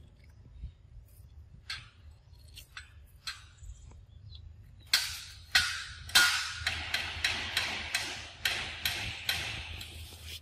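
Close rustling and crackling from a young macaque moving and handling things right by the microphone: a few light clicks, then from about five seconds a quick run of sharp crackles, two or three a second.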